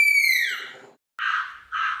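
A long, clear whistled call, held level and then sliding down in pitch until it stops about a second in. Harsh cawing calls follow, two in quick succession.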